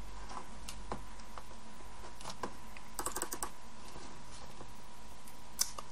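Computer keyboard keystrokes: scattered single clicks with a quick run of them about three seconds in, over a faint steady high tone.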